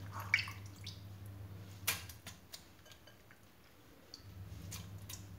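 Raw mutton pieces being put into a steel pressure cooker with onion paste and oil: a few faint clicks and knocks, the sharpest about two seconds in, over a steady low hum.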